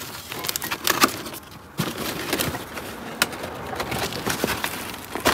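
Cardboard box and its packaging rustling and crinkling as they are handled, with irregular sharp crackles and scrapes.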